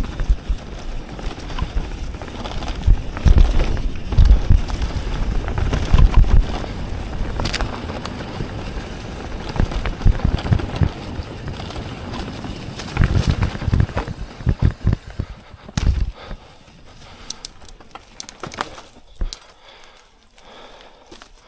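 Yeti SB150 full-suspension mountain bike ridden over rough trail: heavy rumbling and buffeting with a string of knocks and rattles, including a water bottle rattling in its cage. After about 16 seconds it drops to a few light clicks and ticks.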